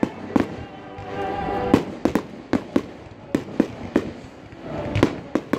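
Fireworks going off: a quick string of about a dozen sharp bangs and cracks, over orchestral music playing underneath.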